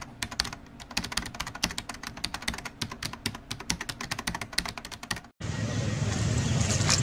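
Computer-keyboard typing sound effect, rapid clicking that runs for about five seconds and then cuts off abruptly. A steady outdoor background noise with a low rumble follows.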